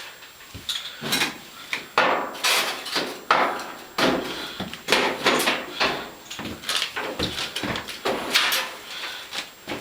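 A string of irregular knocks and clunks, a dozen or so sharp hits, some ringing briefly, as a gas dryer's sheet-metal cabinet is handled and taken apart.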